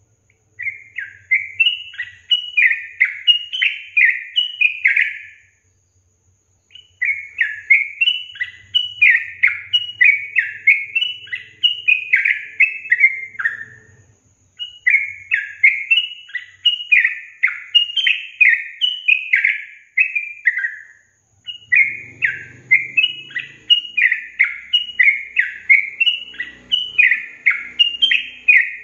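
Yellow-vented bulbul (trucukan) song: long bouts of quick, bubbly, repeated chirping notes. The bouts come back four times with short pauses between them.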